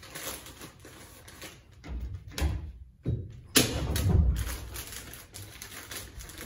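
Fibreglass batt insulation and its kraft paper facing rustling and bumping against the wall studs as it is worked into place around an electrical wire: irregular rustles and soft thumps, the loudest a little after halfway.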